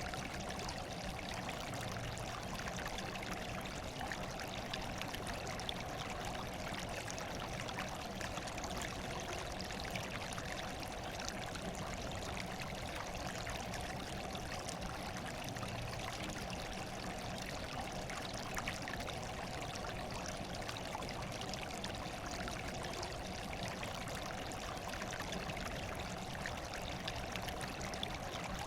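Steady rush of running water, even and unbroken, with no separate splashes or drops standing out.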